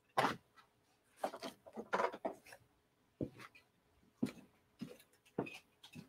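Scattered soft knocks and rustles, irregularly spaced, of a person getting up from a desk chair and walking away across the room.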